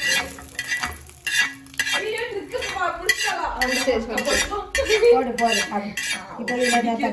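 A metal ladle scraping and clinking against a seasoned iron pan over and over as a hot mustard-seed, dal and curry-leaf tempering is pushed out into a steel bowl of chutney. From about two seconds in, voices can be heard in the background.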